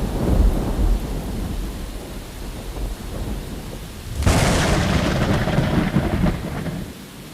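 Thunder: a low rumble dying away, then a sharp thunderclap about four seconds in that rolls off into a fading rumble near the end.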